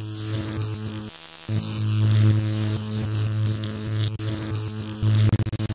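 Electrical buzz sound effect: a loud, steady mains-style hum with crackling static over it. It drops out briefly about a second in and stutters on and off rapidly near the end, like a sparking, shorting wire.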